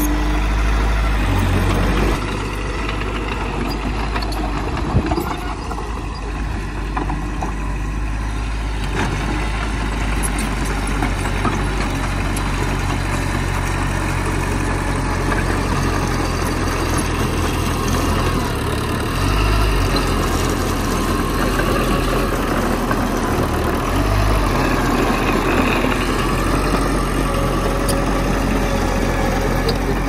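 Heavy diesel earthmoving machinery running steadily as a bulldozer and dump trucks work soil, with a single sharp knock about five seconds in.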